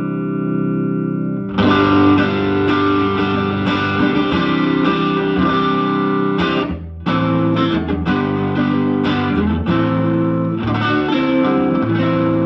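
Electric guitar played through a Silvertone 1484 Twin Twelve tube amp with a light overdrive: a held chord ringing out, then rhythmic strummed chords, with a brief break just before the middle.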